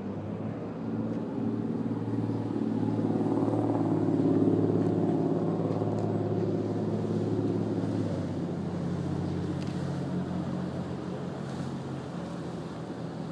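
Engine of a small motorboat passing close by at speed, growing louder to a peak about four seconds in, then fading away.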